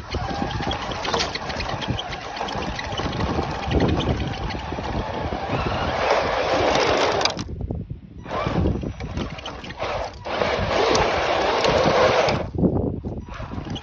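Wind buffeting the microphone: a rough, crackly rushing noise with no steady tone, which cuts out abruptly twice for under a second.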